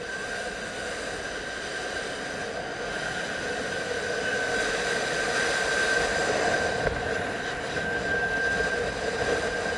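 Zip-line trolley pulleys running along the steel cable at high speed: a steady high whine over rushing noise, growing slowly louder as the descent goes on.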